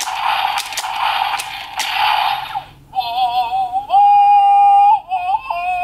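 Bandai Zyuoh the Light transformation toy playing its electronic sounds through its small speaker. First comes a noisy effect with a steady hum and a few clicks. It drops out briefly near the three-second mark, then a synthesized sung voice holds long, wavering notes.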